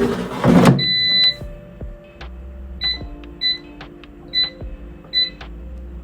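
Air fryer drawer pushed in with a loud scraping clunk, then the control panel beeping: one longer beep about a second in, then four short beeps as the settings are pressed.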